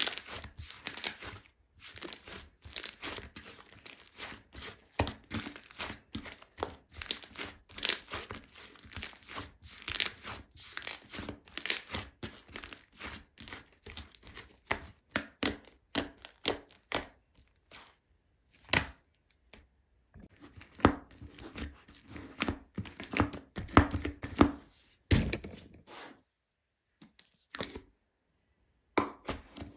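Slime being squeezed, stretched and folded by hand, giving irregular sticky crackles and popping clicks; it stops for a couple of seconds near the end.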